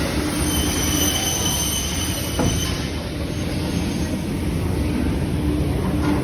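Altech Rumba CNC machining center running, a steady machine drone with a high whine for the first two and a half seconds or so.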